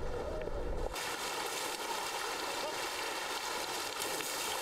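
Muffled underwater rumble of an Asian elephant stirring up the riverbed. About a second in it cuts to steady splashing and rushing water as the elephant's trunk churns the river surface.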